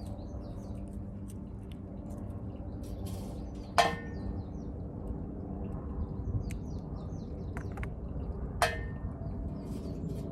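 Two sharp metallic clinks with a short ring, one about four seconds in and one near nine seconds, from metal pieces being handled while meteorite accessories are made by hand. Small birds chirp throughout over a steady low outdoor background.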